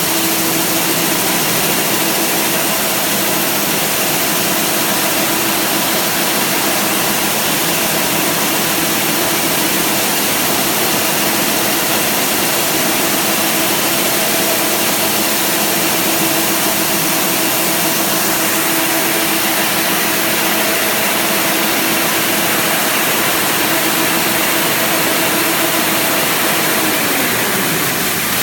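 Four-colour printing machine for printed packing tape running, a steady mechanical whir and hiss with a constant hum tone. Near the end the hum tone drops in pitch.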